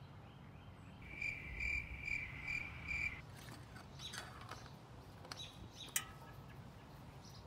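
A high chirp repeated five times over about two seconds near the start. Then light clicks and scraping as a Harley-Davidson Dyna's oil dipstick is pushed back into its filler, with one sharp click about six seconds in as it seats.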